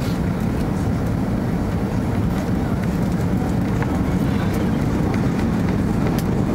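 Steady low roar of an Airbus A330's cabin on final approach, engine noise and airflow heard from a seat over the wing just before touchdown.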